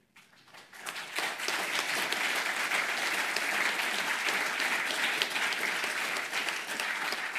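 Audience applauding: dense clapping that swells over the first second or so and then holds steady.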